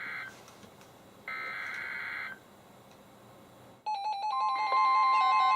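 Two one-second bursts of NOAA Weather Radio SAME header data, a harsh buzzing warble, with a second's gap between them, encoding a flash flood warning alert. About four seconds in, the alert tones start: a steady warning alert tone with several weather radio receivers' beeping alarms layered over it, louder than the data bursts.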